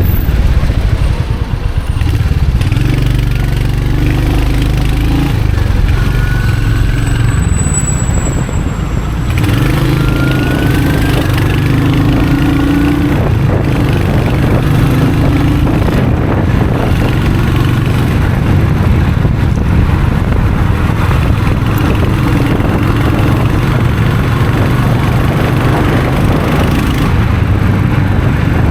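Royal Enfield Hunter 350's single-cylinder engine and exhaust running on the move, the engine note shifting up and down with throttle and gear changes. A brief thin high whine sounds about a third of the way in.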